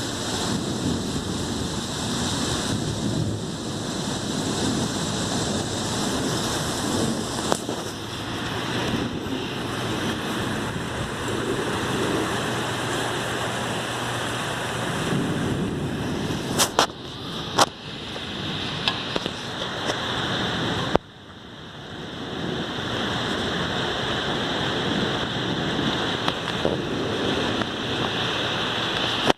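Thunderstorm: heavy rain falling as a steady hiss, with low rumbling of thunder in the first half. A couple of sharp clicks come about 17 seconds in, and the sound drops off suddenly at about 21 seconds before building back up.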